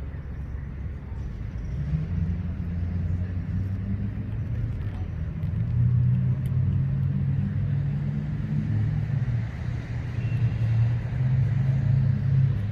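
Low, steady rumble of an engine running, with a steady low hum that gets louder about six seconds in.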